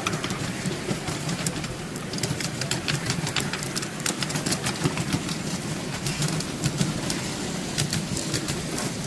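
Miniature ride-on railway train running along the track: a steady low rumble from the wheels and cars with frequent sharp clicks as the wheels pass over the rail joints.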